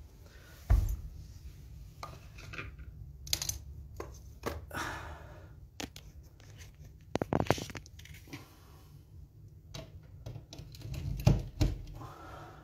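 Handling noise from a handheld phone: scattered taps, rubs and rustles against its microphone, with louder thumps near the start, about seven seconds in and about eleven seconds in.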